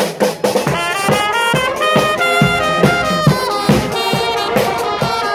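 Street marching band playing a lively tune on trumpets, saxophones and trombones, over a steady beat of about two thumps a second.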